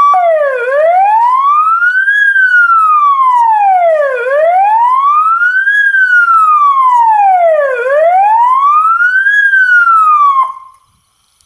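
Bioren electronic siren modulator from the late 1980s sounding a slow wail through its loudspeaker. The tone sweeps up and down about three times, a few seconds for each rise and fall, and is switched off near the end.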